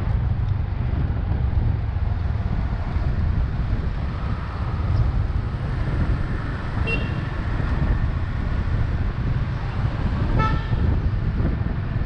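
Steady wind buffeting and road rumble while riding a motorbike through city traffic, with short vehicle horn toots about seven seconds in and again about ten seconds in.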